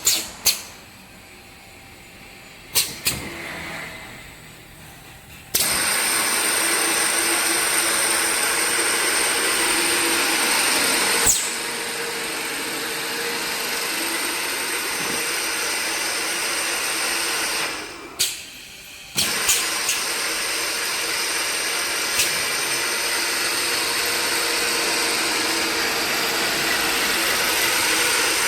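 Foam roller drilling machine in operation: a few sharp mechanical clicks, then a loud steady whir starting about five seconds in. It stops briefly with more clicks about two-thirds of the way through, then runs steadily again.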